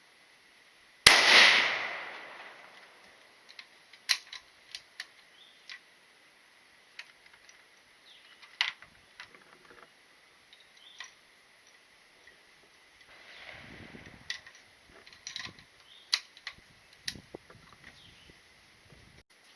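A single gunshot about a second in, its report dying away over about a second. It is followed by scattered small clicks and knocks.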